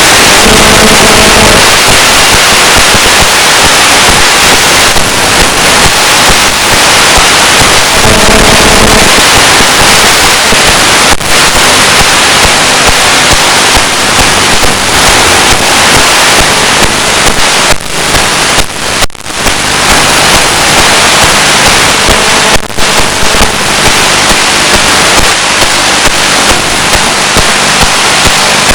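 Loud, continuous crackling static from the audio channel of an analog 1.3 GHz FPV video link. Three times, near the start, about 8 seconds in and about 22 seconds in, a short buzz of GSM mobile-phone interference cuts through it, from a phone carried close to the ground station.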